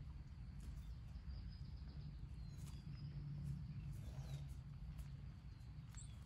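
Faint rural outdoor ambience: a low steady rumble with a few faint, high bird chirps scattered through it.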